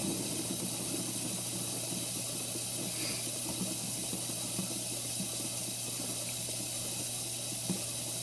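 Dishwasher filling with water: a steady rush of water over a low, constant hum, with a small knock near the end.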